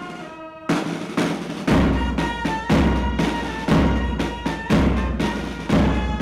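Brass band playing with trumpets and drums: held brass notes, then the drums come in loudly under a second in, the bass drum striking about once a second with side-drum strokes between.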